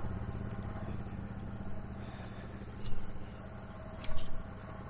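Four-wheeler engines idling steadily as they warm up, slowly growing fainter. Two brief thumps come about three and four seconds in.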